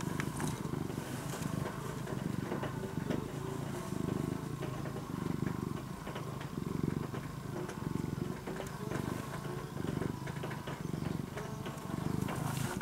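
Ginger-and-white cat purring close up: a steady low rumble that swells and eases with each breath.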